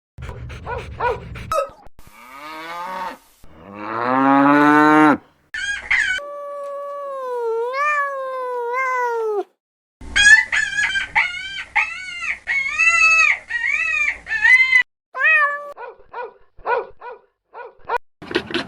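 Different animals calling one after another in short edited clips: a low call rising in pitch, a long wavering call, then a quick run of many short high-pitched calls.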